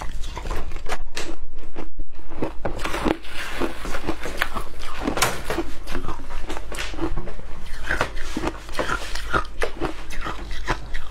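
Close-up chewing of mouthfuls of matcha shaved ice, a dense run of small crunches, with a metal spoon scooping the ice in a plastic tub.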